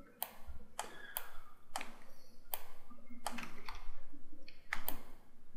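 Sharp, irregularly spaced clicks from a computer mouse and keyboard, about eight over five seconds.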